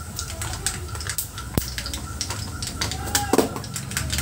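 Mustard, cumin and fenugreek seeds crackling and popping in hot oil in a steel kadai as a tempering fries: an irregular run of sharp little pops.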